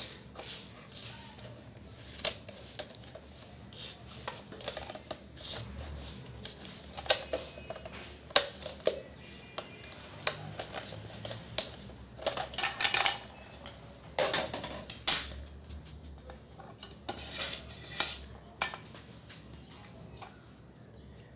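Scissors cutting around a thin plastic bottle: irregular snips and crackles of the plastic, thickest in the middle, with clinks against a plate.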